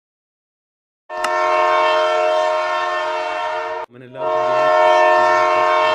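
Train air horn sounding two long, loud blasts of a steady multi-tone chord. The first starts about a second in and breaks off just before the four-second mark, and the second follows a moment later.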